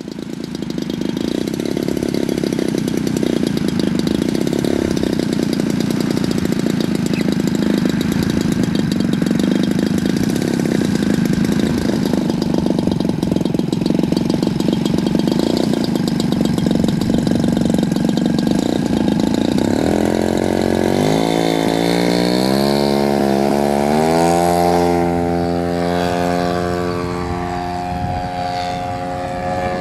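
Engine of a quarter-scale P-51 Mustang model airplane running steadily at low throttle. About twenty seconds in it is opened up for the takeoff run, its pitch climbing for several seconds to full power, then holding high and sinking slowly as the plane climbs away.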